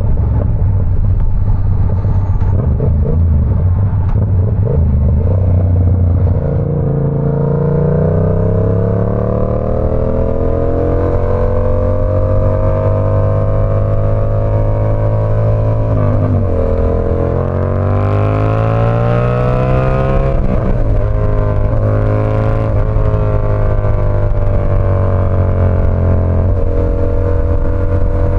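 Yamaha R7's 689 cc parallel-twin engine pulling under way, its pitch climbing and dipping with throttle and gear changes, then holding steady at cruise, with wind noise around it.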